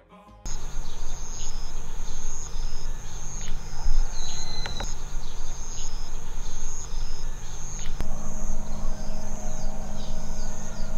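Outdoor summer ambience of insects singing: high-pitched, steady chirring that breaks off and starts again every second or so, over a low rumble. The background changes slightly about eight seconds in.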